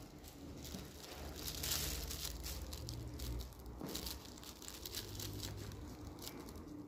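Thin plastic supermarket bag over a head crinkling and rustling in irregular bursts as a metal highlighting hook pokes through it and pulls strands of hair out through the holes.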